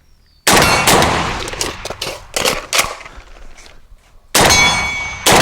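Suppressed .30-06 Ohio Ordnance Works HCAR rifle firing in two bursts of shots, a pair about half a second apart near the start and another pair near the end, with weaker cracks between them. A metallic ringing follows the later shots.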